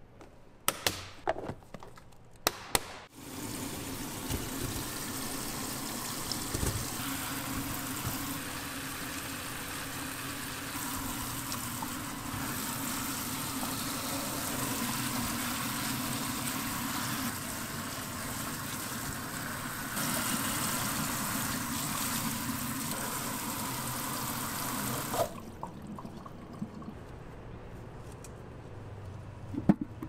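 Tap water spraying steadily onto fresh strawberries in a stainless steel colander as they are rinsed, for about twenty seconds, then shut off abruptly. A few light clicks and knocks of handling come before and after.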